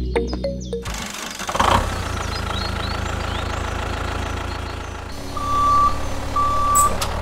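Tractor engine running steadily from about a second and a half in, after a low hum, with two short high-pitched beeps near the end.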